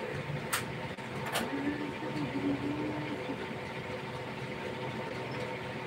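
Sewing machine running with a steady motor hum, with two sharp clicks about half a second and a second and a half in.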